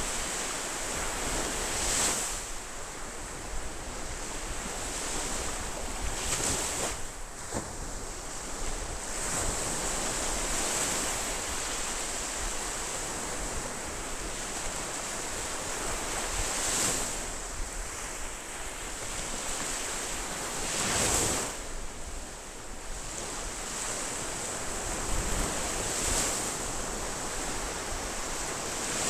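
Ocean surf: a steady hiss of waves washing on a shore, with a louder breaker swelling up and falling away every few seconds.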